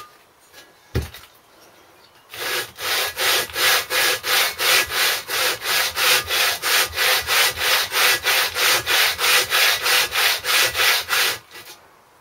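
Briggs & Stratton 5 hp engine block's deck face being rubbed back and forth on abrasive paper, a steady rasping scrape at about four strokes a second, lapping the gasket face flat to show its high and low spots. A single thump about a second in; the strokes start at about two seconds and stop shortly before the end.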